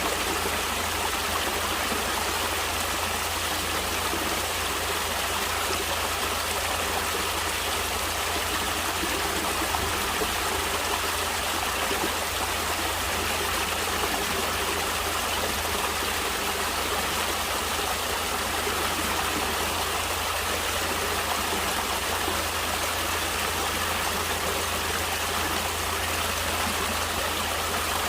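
Natural running water, a stream flowing steadily as an even, unbroken rushing.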